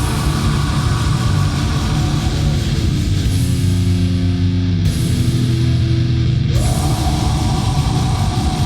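War metal recording: dense distorted guitars over a continuous drum kit, with the chord shifting every couple of seconds.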